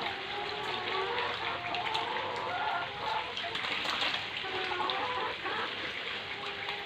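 Steady splashing and churning of water as a crowded shoal of catfish stirs at the pond surface, with laying hens clucking now and then.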